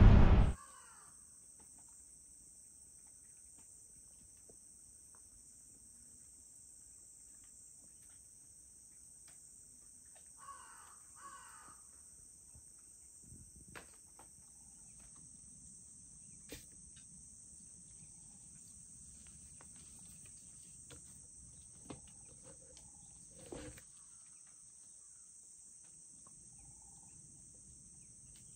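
Quiet outdoor ambience: a steady high insect drone, with a crow cawing twice about ten seconds in. A few faint ticks and knocks come later.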